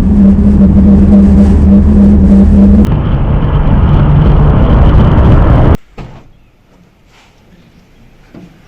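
Loud, steady motor-like drone with a low hum that drops in pitch about three seconds in, then cuts off suddenly before the six-second mark, leaving only faint background noise.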